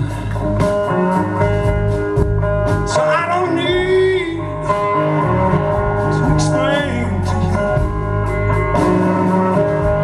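Live blues band playing: Stratocaster-style electric guitar, bass guitar and drums, with a male singer.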